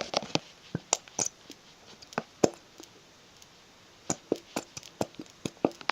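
Irregular sharp taps and clicks from handling the glue pen and bowl, in bunches with a quiet gap of over a second in the middle.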